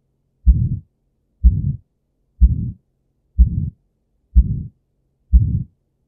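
Recorded heart sounds of aortic stenosis: about one beat a second, each a sharp first heart sound run straight into a harsh, low systolic ejection murmur, a crescendo-decrescendo murmur that is the sign of a narrowed aortic valve.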